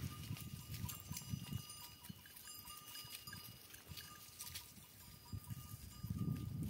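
Bells on a herd of goats clinking and ringing as the animals walk, over a low rumble that is heaviest near the start and end.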